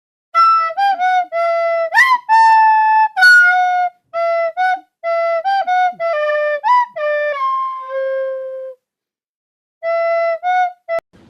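A flute-like woodwind melody of short detached notes, mostly one note repeated with quick upward slides between, breaking off for about a second near the end before a few more notes.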